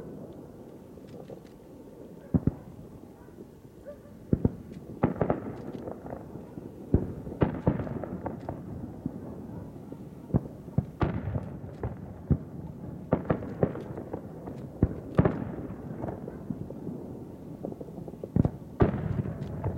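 Aerial firework shells bursting, a string of a dozen or more sharp bangs at uneven intervals, each trailing off in an echoing rumble. It is sparser in the first few seconds and busier from about a third of the way in.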